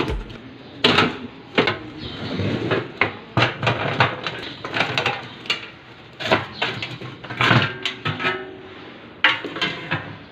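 Metal parts and tools clattering and clicking as a battery charger is taken apart by hand: a run of irregular knocks and rattles, some sharp and loud.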